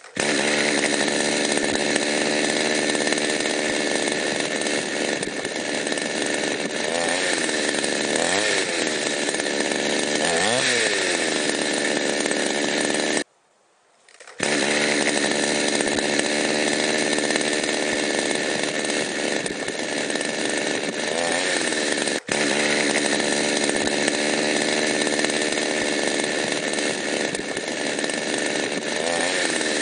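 Petrol chainsaw running at high revs, its engine pitch dipping and recovering several times as it cuts wood. The sound stops abruptly for about a second a little before halfway, then the saw runs on steadily.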